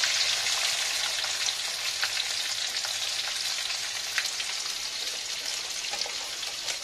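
Hot oil sizzling in a kadhai with cumin seeds and green chillies as sliced onions are tipped in: a steady frying hiss with a few small pops that slowly eases off as the onions cool the oil.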